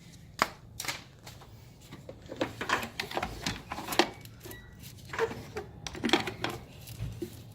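Hands working in an engine bay, fitting the drive belt back over the pulleys: irregular sharp clicks and light knocks with short bursts of rubbing and rustling.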